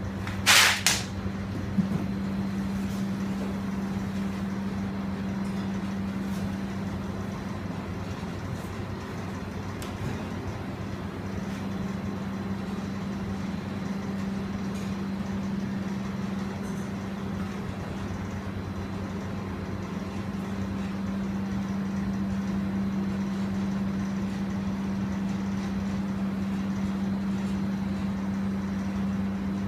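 A steady low mechanical hum at one unchanging pitch, with a brief loud scratchy noise about half a second in and a few faint ticks later.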